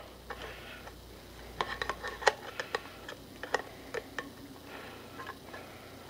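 Can opener blade of a Leatherman Rebar multi-tool levering its way around the lid of a steel food can: a series of irregular sharp clicks and ticks as the blade bites through the tin. They come thickest between about one and a half and three seconds in.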